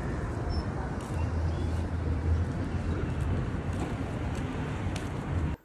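Steady low rumbling background noise with a faint hiss, cutting off suddenly near the end.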